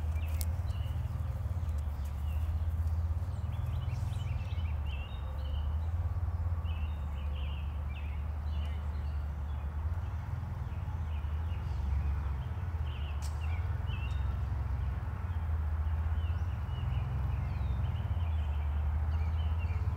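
Outdoor pond-side ambience: a steady low rumble that swells and eases, with small birds chirping on and off above it.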